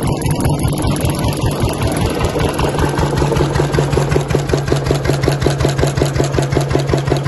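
MAH 516 diesel engine of a 1932 mobile saw running, its big open flywheel turning. It has a steady, even, rapid beat that grows more regular about halfway through.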